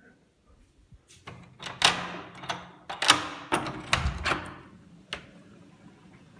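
Brass doorknob turned and a wooden door unlatched and opened: a run of sharp clicks, knocks and rattles from the latch and knob over about four seconds, then one last click.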